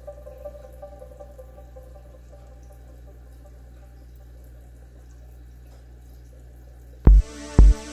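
Soft steady water trickle over a low hum, typical of air-driven sponge filters bubbling in an aquarium. Near the end an electronic music track comes in with loud kick-drum beats, about two a second.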